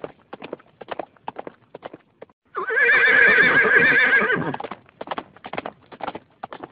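Horse hoofbeats, a quick run of knocks about four a second, with one loud whinny of about two seconds in the middle whose pitch wavers and then fades.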